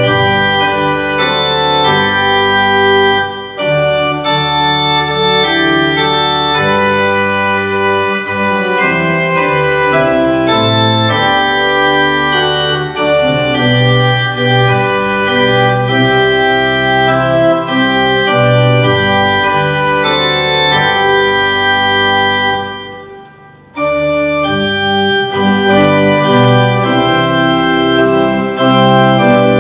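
Organ music playing slow, held chords, with a brief pause about three-quarters of the way through.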